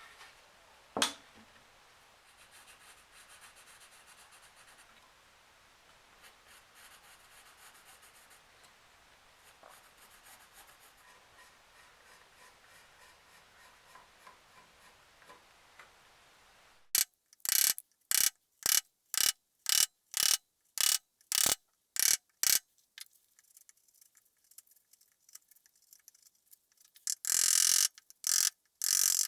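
A hand tool working the workpiece in quick back-and-forth scraping strokes, about two a second, starting a little past halfway, with one longer unbroken stroke near the end. Before that there is only a faint hiss and a single click.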